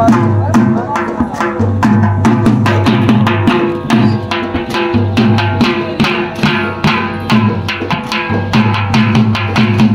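Dhol drum beaten in a fast, even jhumar rhythm of about four strokes a second, with a been reed pipe holding a sustained, droning melody over it.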